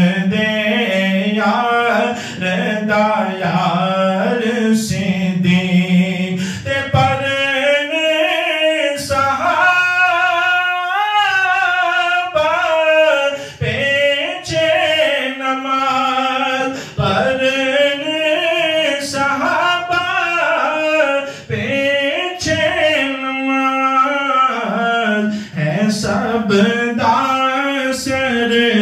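A man singing a devotional manqabat unaccompanied into a microphone, with long held notes that bend and waver in pitch.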